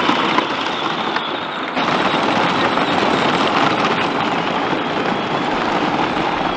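Two battery-powered kids' ride-on toy John Deere tractors driving along, their hard plastic wheels rolling over gravel and packed dirt with a steady crunching rattle.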